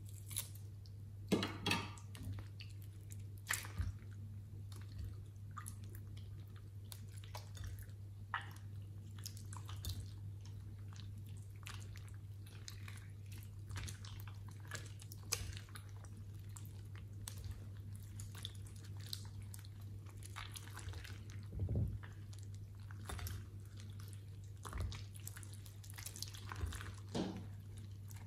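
Soft slime being squeezed, kneaded and stretched by hand: irregular wet squelches and sticky pops, a few louder ones, over a steady low hum.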